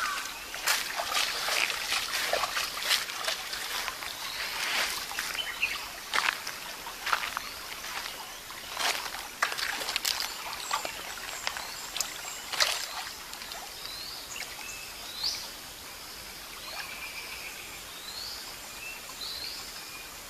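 Water splashing and sloshing irregularly as a person wades through a shallow stream and reaches into it with his hands, busiest over the first dozen seconds. Later, birds chirp with short rising calls over a faint steady background.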